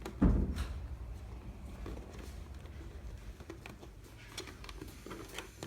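A low thump about a quarter of a second in, then scattered light clicks and rustling as a stroller seat and its harness straps are handled.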